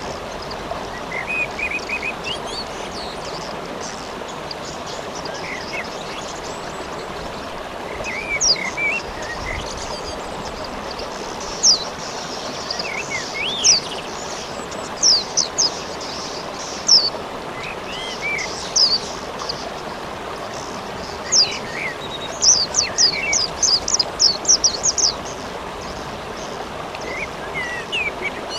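Steady rain hiss with a songbird calling over it: short chirps and high, sharp downward-slurred notes, with a quick run of them about three-quarters of the way through.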